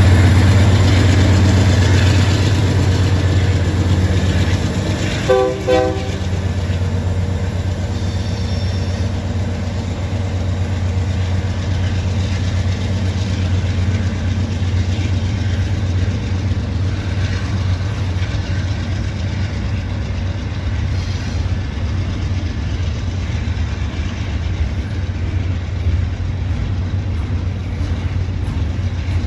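Union Pacific diesel locomotive passing close by, its engine a strong low rumble that eases after the first few seconds. It is followed by double-stack intermodal container cars rolling past with steady wheel-on-rail noise. A brief high tone sounds about five seconds in.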